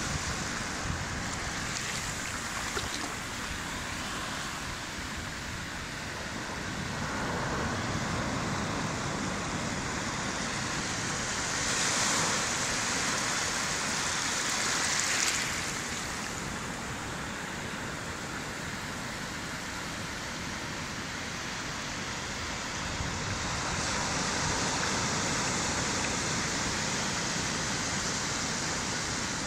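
Sea surf breaking and shallow waves washing up over sand: a steady rush of water that swells louder a few times as waves come in.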